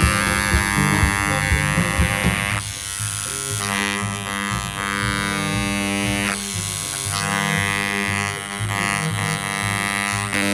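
Dremel 290-1 electric engraver buzzing as its carbide tip hammers into the work, the buzz shifting in tone and level every second or two, with background music.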